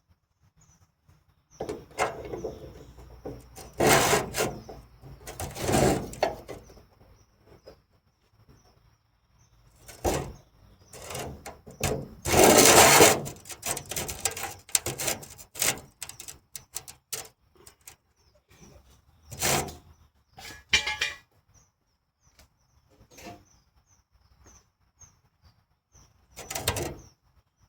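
Intermittent bursts of clattering and scraping as tools and a small piece of scrap sheet metal are handled and set up in a loose bench vise. Faint bird chirps recur in the background.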